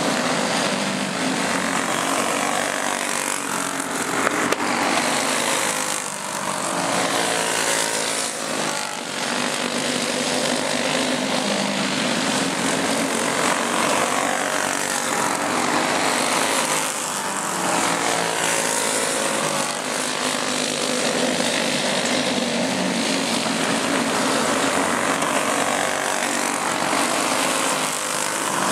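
Several racing go-kart engines running together, their pitch rising and falling as the karts lap and pass.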